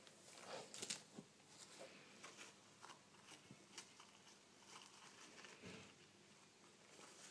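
Faint rustling, scratching and small clicks of wood-shaving and shredded-paper bedding in a plastic tub as a gerbil moves about and climbs at the sides, with louder rustling about a second in.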